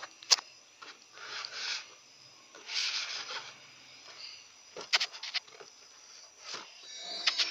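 Hands handling a cardboard toy box with a clear plastic window: rubbing and scraping against the cardboard, with a sharp click about a third of a second in and a quick run of clicks about five seconds in.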